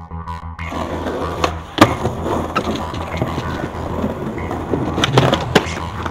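Skateboard wheels rolling over stone paving, with sharp clacks of the board popping and landing. The loudest clack comes about two seconds in, and two more come close together near the end.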